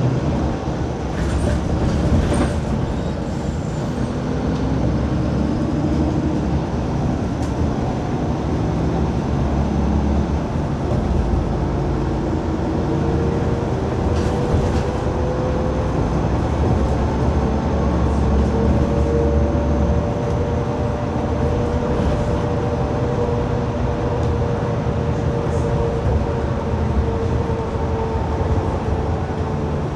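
City bus under way, heard from inside: a steady engine and road rumble with a whine that slowly rises and falls in pitch as the bus speeds up and slows down. There are a few short rattles near the start and about halfway through.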